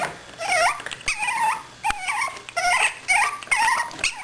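Chihuahua puppy whimpering in short, high squeaks, about six in a row.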